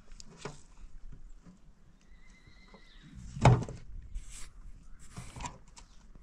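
Scattered knocks and scraping of stone and metal being handled, the loudest a single sharp knock about three and a half seconds in.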